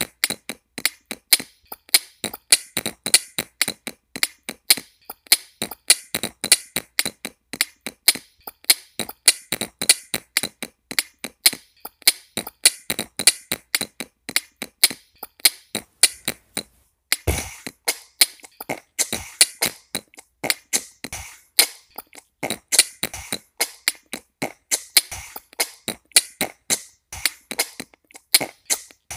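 Vocal beatboxing: a fast, unbroken run of sharp mouth clicks, snares and hissing hi-hat sounds, several strokes a second. A little past halfway it breaks off for a moment and comes back in on a deep kick-drum sound.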